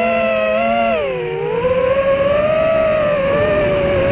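FPV quadcopter's electric motors and propellers whining, several close pitches together, heard from the onboard camera. The pitch drops about a second in, then climbs back and wavers with the throttle.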